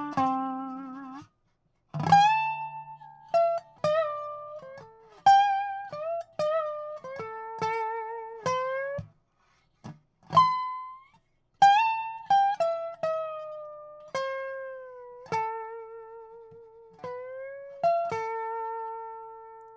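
Lap-style resonator guitar played with a slide bar: a slide solo of single plucked notes that glide up and down in pitch and waver with vibrato, broken by a few short pauses and ending on a long held note.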